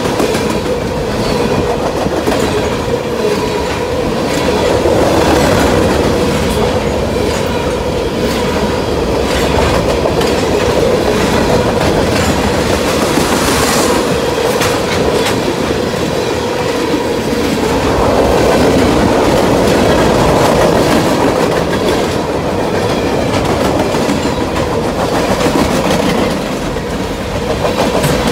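Freight cars of a mixed train (tank cars, covered hoppers and boxcars) rolling past close by: a continuous rumble and clatter of steel wheels over the rail joints, with a steady whine held underneath.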